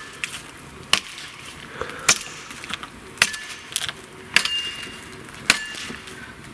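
Axe chopping wood: sharp blows about once a second, some with a short metallic ring after the strike.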